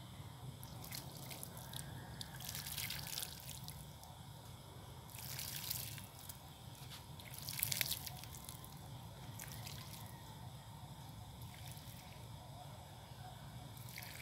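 Water trickling and dripping from a metal watering can's long spout onto the potting soil, with a few louder splashing spurts.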